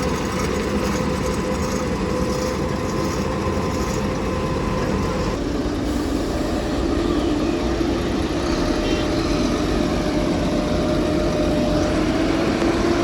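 Vehicle engines running steadily, with an abrupt change in the engine tone about five seconds in.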